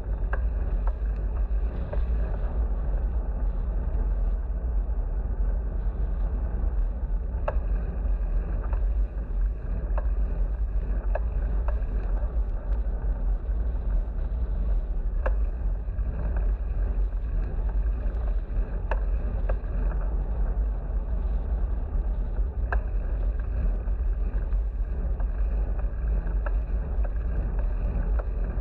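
Wind rumbling on the microphone of a bicycle-mounted GoPro while riding, over steady road and tyre noise, with scattered sharp ticks.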